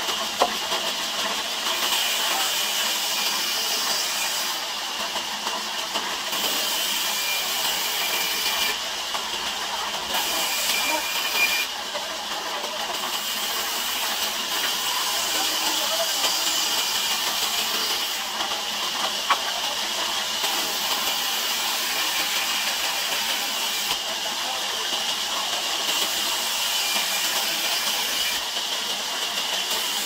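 Large sawmill band saw running and cutting through timber as the wood is pushed through the blade: a steady high hiss with a few brief knocks.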